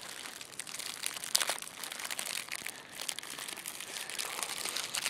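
Plastic snack wrapper crinkling and crackling as it is handled and opened, with the sharpest crackle about a second and a half in.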